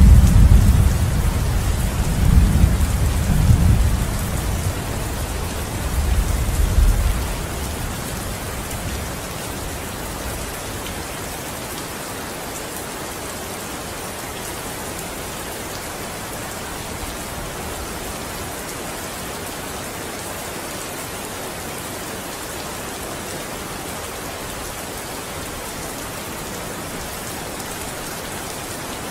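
Steady rain falling, with a deep roll of thunder over the first several seconds that fades out about eight seconds in, leaving only the even hiss of the rain.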